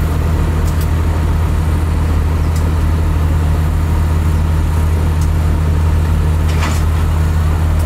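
Diesel engine of a rail maintenance vehicle running at a steady low drone, with a few light clicks.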